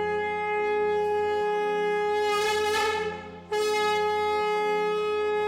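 Conch shell (shankh) blown in long, steady blasts on one held note. The tone swells brighter about two and a half seconds in, breaks off briefly after about three and a half seconds, and a fresh blast begins.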